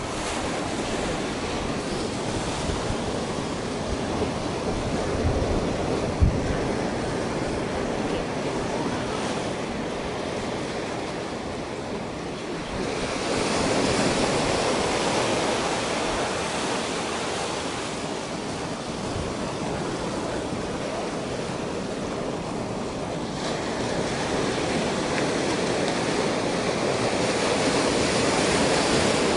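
Ocean surf washing in over a rocky beach, waves breaking and draining back in slow swells, louder twice as larger waves come in. Wind rumbles on the microphone, with a brief thump about six seconds in.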